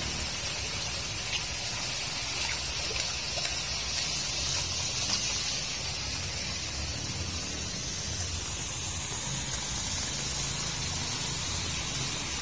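Muddy rainwater gushing and splashing through a roadside culvert drain grate as it is cleared with a stick, with rain falling; a steady rushing with a few faint clicks.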